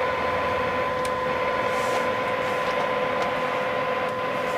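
Stryker SR955HPC CB radio's speaker reproducing a steady test tone over a bed of hiss, received from an RF generator's amplitude-modulated signal at −137 dBm, with the volume wide open and the noise blanker off. A very weak signal still comes through as a clear tone.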